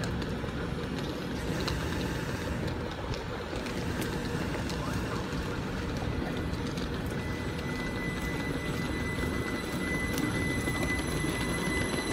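GWR class 387 electric multiple unit at the platform, a steady low hum and rumble, then pulling away: from about seven seconds in its traction motors set up a steady high whine, and near the end a tone begins to rise as it gathers speed.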